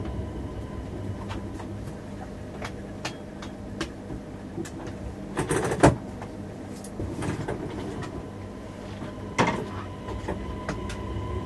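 Öresundståg X31 electric multiple unit standing at a platform, heard from the driver's cab: a steady low hum of the onboard equipment after the rolling rumble dies away in the first two seconds, with scattered clicks and two louder clunks, about five and a half and nine and a half seconds in.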